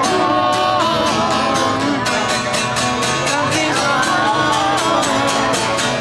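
Acoustic guitar strummed steadily, with a man and a woman singing along.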